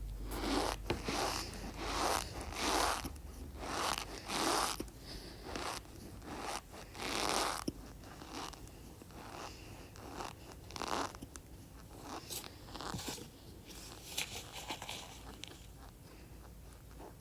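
Cornstarch being squeezed, giving a run of short squeaky crunches, each under a second long. They come strong and regular at first, then fainter and more scattered in the second half.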